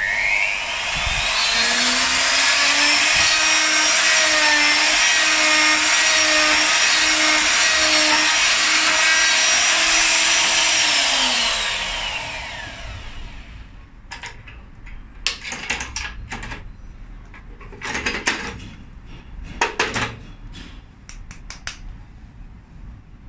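Router spindle motor of a woodworking mortise-and-tenon machine, fitted with an 8 mm cutter. It spins up with a rising whine, runs steadily for about nine seconds while cutting a small slot in wood, then winds down. After it stops come several sharp knocks and clicks as the workpiece is handled.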